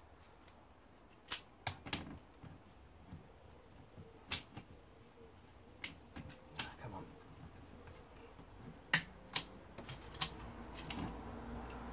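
About ten sharp metallic clicks and clacks at irregular intervals, from hand tools and parts being worked on the clutch side of a partly stripped Honda CB250 engine.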